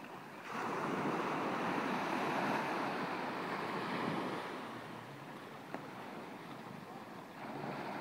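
Small waves breaking and washing up a sandy beach: the rush of surf swells about half a second in, eases off past the middle, and a fresh wave comes in near the end. A single brief click about six seconds in.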